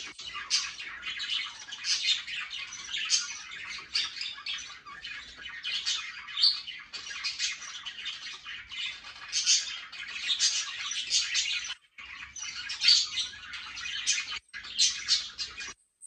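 A flock of budgerigars chattering: a dense, continuous stream of high chirps and squawks that breaks off briefly twice near the end.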